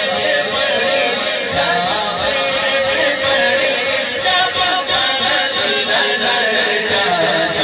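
A man singing a naat solo into a microphone, in long, wavering melodic lines.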